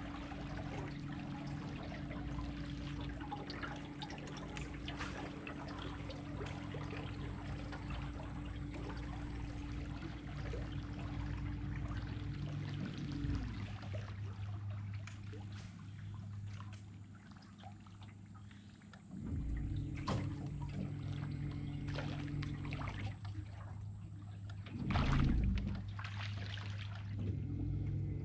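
Electric trolling motor humming steadily over water lapping and splashing at the boat's hull. The hum cuts out about halfway through and starts again several seconds later, and the water swells louder near the end.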